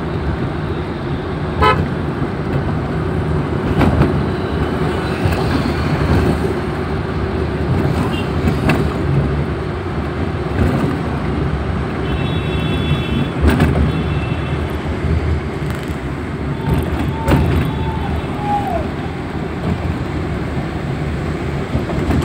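Steady road and engine noise heard from inside a moving vehicle in city traffic. Vehicle horns toot, with two short high beeps about halfway through.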